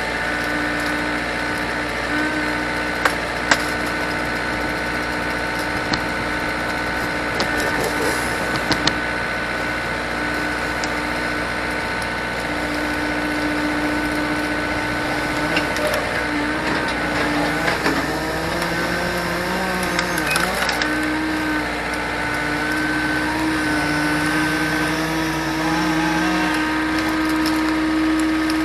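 A vehicle engine running on the move, with road noise, heard from inside the cab. Its note shifts in steps past the middle as the speed changes, and there are a few light clicks and knocks early on.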